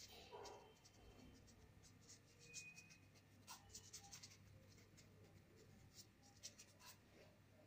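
Faint, short, irregular scratchy strokes of a paintbrush working paint on the painting surface, over a steady low hum.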